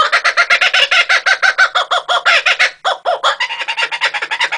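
Laughing kookaburra calling: a long run of rapid, loud, chuckling notes, about ten a second, with a brief break a little past halfway before the notes resume.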